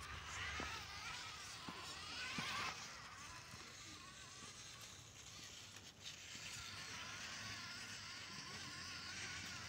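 Electric motor and geared drivetrain of a Danchee Ridgerock RC rock crawler whining, the pitch wavering up and down with the throttle as it crawls over rock, with a few light clicks in the first few seconds. The whine drops away about three seconds in and comes back fainter after about six and a half seconds.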